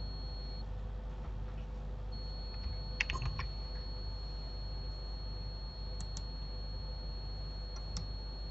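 Computer keyboard and mouse clicks: a quick cluster of key presses about three seconds in, then a pair of clicks in the middle and one more near the end, over a steady low hum and a faint high whine.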